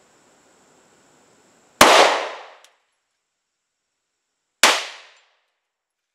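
Two 9mm pistol shots from a Polymer 80 Glock 19 build, a little under three seconds apart, each ringing out briefly.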